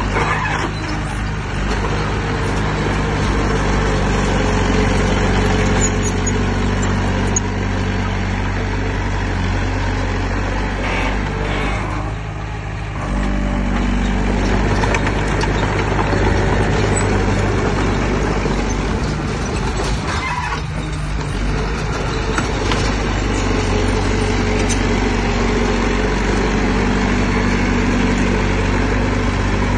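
Diesel engine of heavy earthmoving machinery running steadily, with a short drop in level about twelve seconds in.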